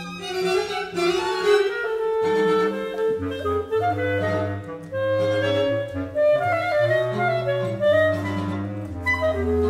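Contemporary chamber septet of clarinet, bass clarinet, mandolin, guitar, violin, viola and cello playing, the clarinet to the fore, with low sustained notes entering about three seconds in.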